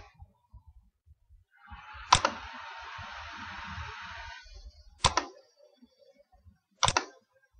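Computer mouse clicks, sharp and loud: one about two seconds in, one about five seconds in, and a quick double click near seven seconds. A soft, steady hiss lasts about three seconds between the first two clicks.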